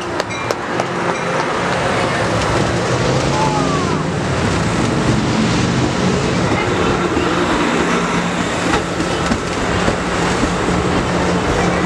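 Amtrak Pacific Surfliner bilevel passenger cars rolling past close by: steady wheel and rail noise over a low hum. It grows louder over the first couple of seconds, then holds.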